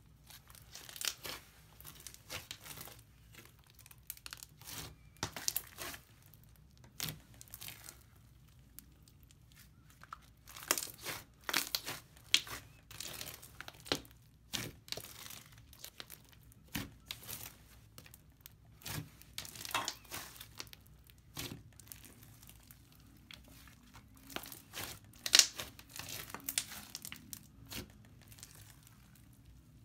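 Hands kneading, stretching and pressing a thick pink slime mixed with small beads, giving irregular sticky crackles, pops and tearing sounds as it pulls apart, with one sharper pop late on.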